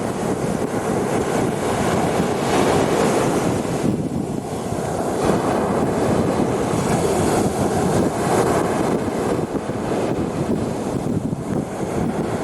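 Waves breaking on the shore, a continuous wash of surf that swells twice, with wind buffeting the microphone.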